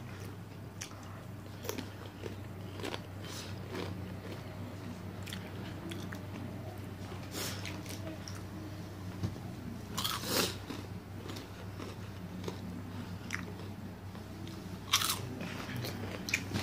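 Close-up crunching and chewing of crunchy Flamin' Hot Cheetos, irregular crunches with louder ones near the middle and again near the end. A steady low hum runs underneath.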